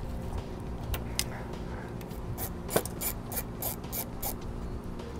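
Hands working a wire at a trailer's wiring junction box, with light rubbing and handling noise. About two and a half seconds in comes a run of about six sharp clicks, about three a second, as a hand crimper squeezes a ring terminal onto the stripped black power wire.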